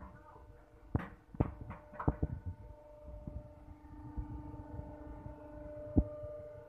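Sharp knocks and clanks from the steel frame and door latches of a hydraulic cardboard baler, four in the first two and a half seconds and one more near the end, over a faint steady hum.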